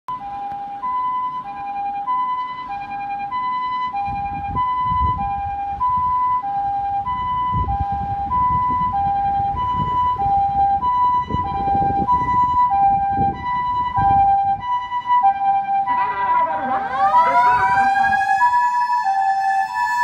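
Japanese ambulance's electronic two-tone siren alternating high and low notes, drawing nearer. About sixteen seconds in, its motor siren spins up, a wail that rises steeply and then holds high over the two-tone.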